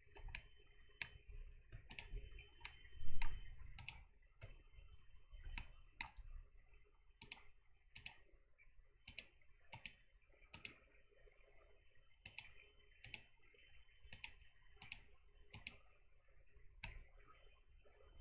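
Irregular clicks of a computer mouse and keyboard, one every half second to a second, over a low rumble, with a louder bump about three seconds in.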